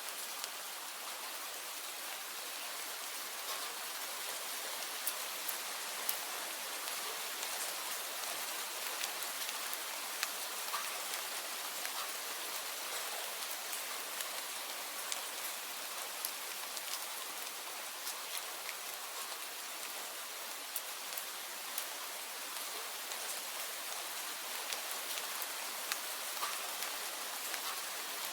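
Steady rain falling: an even, dense hiss of rain, with individual drops ticking sharply here and there.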